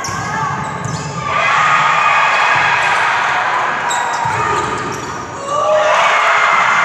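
Volleyball rally in a gym: sharp slaps of hands and arms striking the ball, with a crowd shouting that rises about a second in and swells into cheering near the end.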